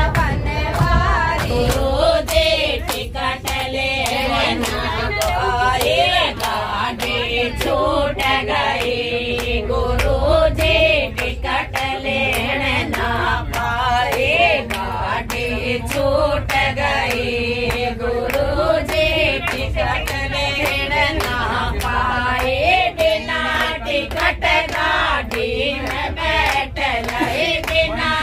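A group of voices singing a devotional song together, keeping time with steady hand clapping at about two claps a second.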